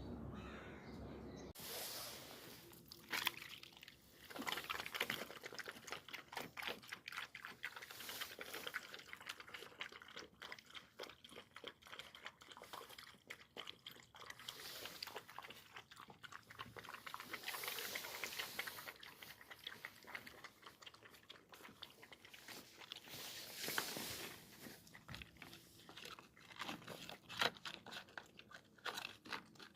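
A dog chewing and crunching hard food close to the microphone: a long, irregular run of crunches with louder bites now and then.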